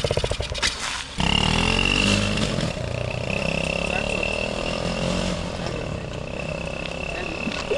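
X18 pocket bike's small two-stroke engine running while ridden. It picks up about a second in, its pitch sweeping as it revs and settles, with a steady high whine over it.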